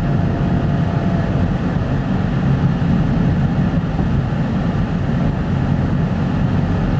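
Steady low road and engine noise of a moving car, heard inside the cabin.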